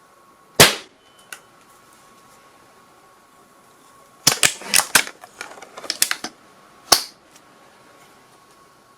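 Gunshot sound effects: a single sharp shot about half a second in, then a quick, irregular string of shots from about four to six seconds in, and one more single shot about seven seconds in.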